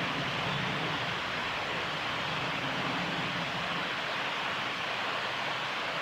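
Steady, even rushing background noise with no birdsong heard. There is a faint low hum underneath for the first few seconds.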